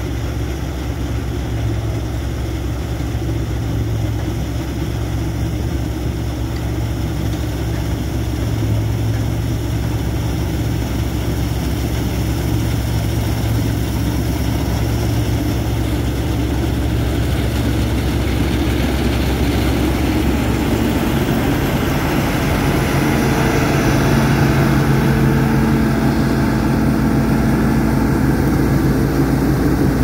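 John Deere 1075 Hydro/4 combine harvester working through wheat: a steady, loud diesel engine and threshing machinery. It grows a little louder as the combine comes close and passes, and its sound shifts about two-thirds of the way in.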